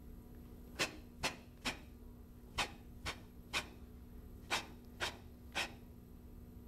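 Nine short, sharp swishes from a vigorous arm movement, in three groups of three, each group evenly paced about half a second apart.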